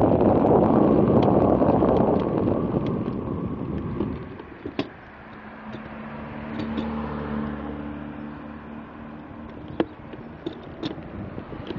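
Wind buffeting the microphone while riding a bicycle, dying away about four seconds in. A motor vehicle's engine then hums steadily for a few seconds, with a few sharp clicks, before the wind noise picks up again near the end.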